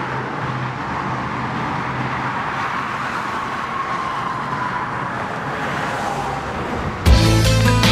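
Steady highway traffic noise, with a faint whine slowly falling in pitch midway as a vehicle goes by. About seven seconds in it cuts to louder music with strummed guitar.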